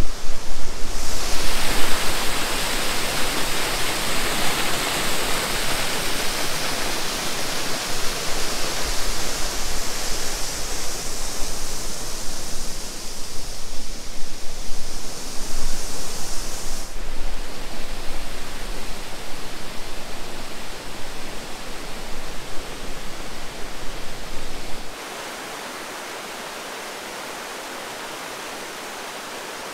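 Steady rush of a tall waterfall falling into a gorge, with a gusty low rumble of wind on the microphone. About 25 seconds in it cuts abruptly to a quieter, even rush of water over a small rocky cascade.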